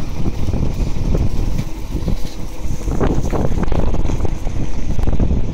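Strong wind buffeting the microphone over a Land Rover Defender 110's engine running as it takes up the strain of towing a 14-tonne truck on a rope. The rumble gets rougher and louder about three seconds in.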